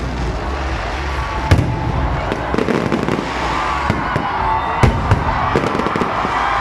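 Aerial fireworks display: a rapid run of shell bursts and crackling, with two sharper bangs, one about a second and a half in and one near five seconds.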